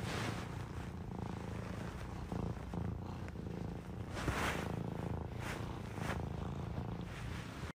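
Serval purring steadily, a low pulsing rumble, with a few louder breathy rasps as it holds and mouths a person's arm while being stroked. The sound cuts off abruptly near the end.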